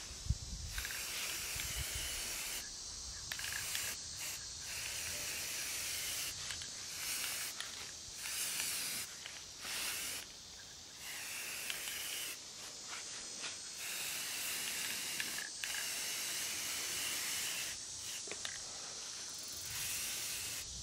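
Aerosol spray paint can spraying with a steady hiss, in a string of long sprays broken by brief pauses as the paint is laid on.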